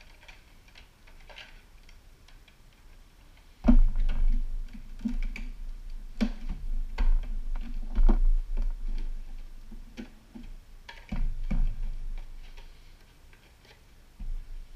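Handling noise from an armor shin piece being fitted and fastened with Velcro: scattered light clicks and taps. From about four seconds in there are heavier knocks and rubbing, which ease off near the end.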